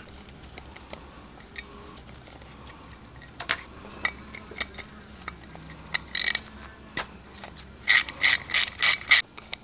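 Light metallic clicks as small parts are worked loose from a carburetor body with hand tools. The clicks are scattered at first, then come in a quick run of about six ticks near the end.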